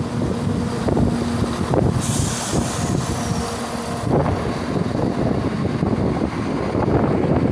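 East Midlands Railway Class 170 Turbostar diesel multiple unit rolling past along the platform: the underfloor diesel engines run with a steady low rumble and hum, and irregular knocks come from the wheels and running gear. A loud hiss starts about two seconds in and lasts about two seconds.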